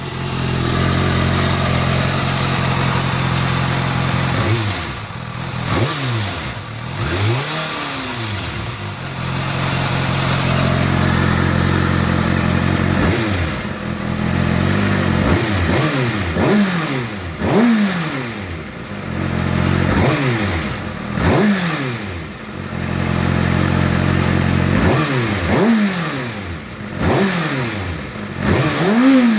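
Kawasaki ZX-6R inline-four motorcycle engine, fully warmed up, idling and repeatedly blipped, each rev rising quickly and dropping back to idle. The engine has a ticking noise that the owner is trying to track down.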